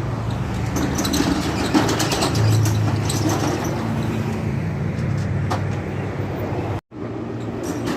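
Steel roll-up shutter being raised, its slats rattling and clicking over a steady low hum as it rolls up.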